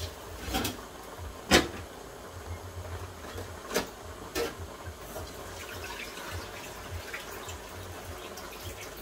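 Kitchen sounds: four sharp knocks of kitchenware in the first half, over a faint, steady watery sound.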